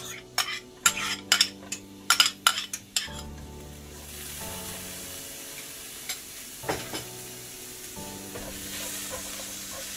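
Chopped onions sizzling in hot oil in a non-stick frying pan. A metal spoon knocks and scrapes against the bowl and pan several times in the first three seconds, then a steady sizzle takes over.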